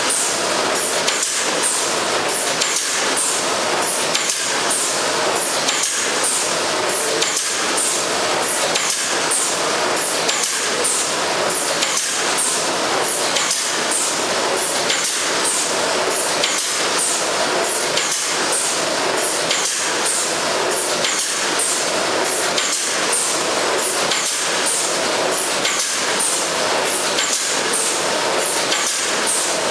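Horizontal pouch packing machine running: a steady mechanical clatter with regular clicks and short hisses repeating several times a second.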